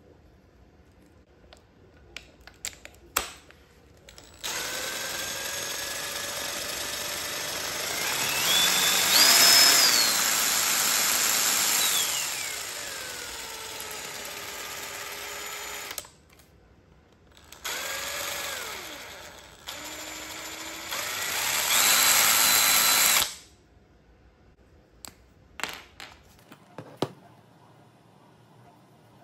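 Cordless drill spinning a freshly greased 3D-printed ABS bearing with nylon balls on a socket. The motor whine rises in pitch as the trigger is squeezed and falls back as it is eased off, over three runs: one long run of about eleven seconds, then two short ones. Light handling clicks come before and after the runs.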